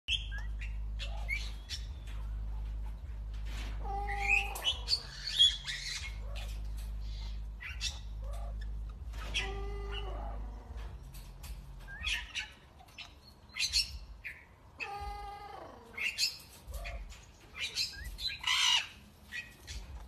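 Hawk-headed parrots calling: a run of short squawks and chirps, with longer buzzy, pitched calls about 4, 9 and 15 seconds in. A low steady hum runs under the first half.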